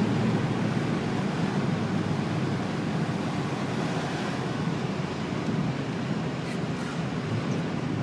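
Renault Clio mk1 1.8 16v on the move, heard from inside the cabin: a steady rush of road and wind noise with only a faint engine note, slowly getting quieter.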